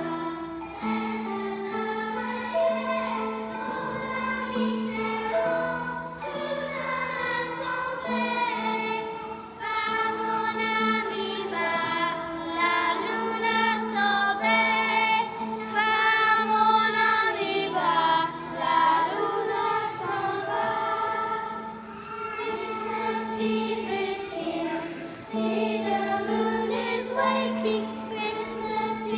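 A children's choir singing a Christmas song, over a steady held low note that drops out now and then.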